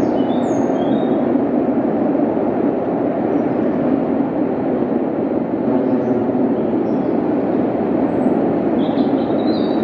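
Steady, continuous rumble of the Flying Scotsman steam train, locomotive and coaches, rolling across the steel Forth Bridge, heard from a distance. A few faint high chirps sit above it.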